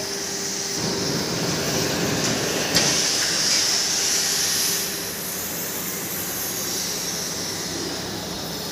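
Steady hissing, rushing workshop noise, a little louder for a few seconds, with one sharp click about three seconds in.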